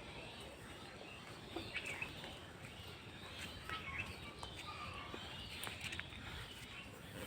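Birds chirping and calling faintly over steady outdoor background noise, with many short high chirps scattered through.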